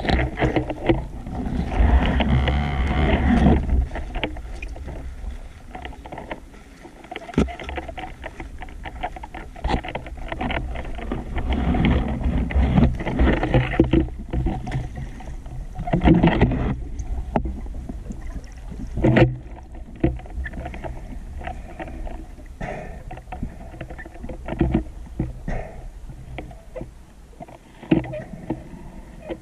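Muffled underwater noise picked up by a camera housing on a speargun as the diver swims: a low rumble of water with irregular surges and sharp knocks against the housing.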